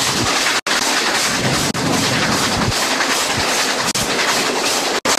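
Steam-hauled passenger train running at speed, heard from an open carriage window: a steady rush of wind and rolling noise. It cuts out for an instant twice.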